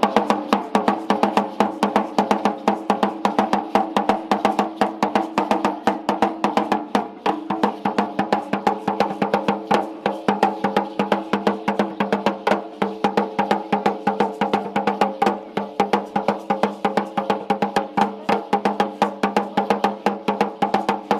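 Large upright Aztec huehuetl drum beaten with two sticks in a fast, even rhythm of several strokes a second, for Aztec dancing.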